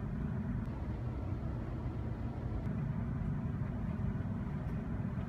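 Steady low rumble of background machinery or room noise, with a couple of faint ticks.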